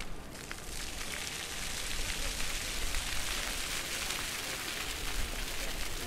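Ground-level fountain jets spraying and splashing down onto paving. The splashing hiss swells about a second in as more jets come on.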